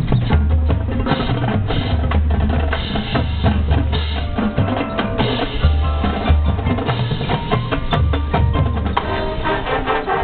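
High school marching band playing a percussion-heavy passage: bass drums and snare drums over long low notes. Sustained wind chords come in about nine seconds in.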